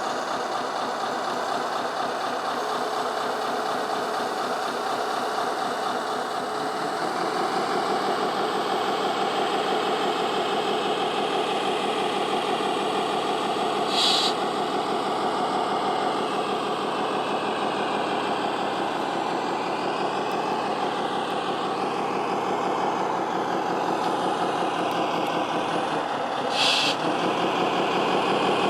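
Radio-controlled model construction machines running: a steady engine-like hum that drifts up and down in pitch, with two short hisses, one about halfway and one near the end.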